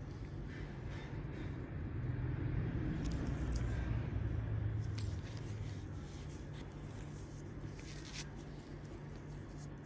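Low background rumble that swells about two seconds in and eases off after five, with a few faint light clicks on top.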